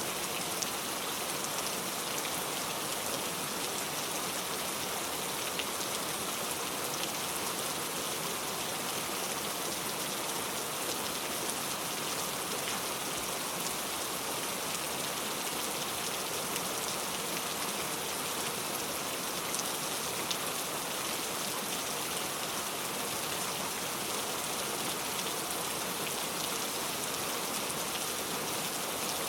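Heavy rain pouring steadily, a dense even hiss of drops hitting a surface, with scattered sharper drop ticks.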